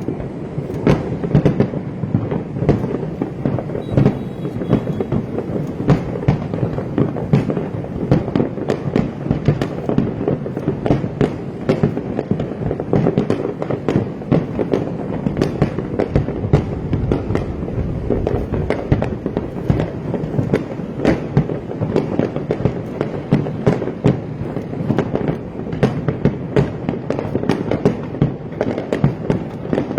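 Fireworks display: a dense, continuous barrage of bursts and crackles, many pops a second without a break.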